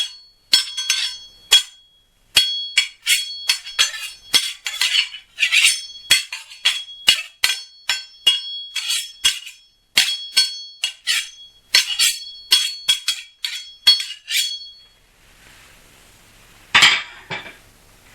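Steel kitchen knife blades struck against each other as sword-clash sound effects: dozens of quick metallic clinks, each with a short, high ringing tone. About two seconds after the run of clinks stops comes one louder, longer blade stroke.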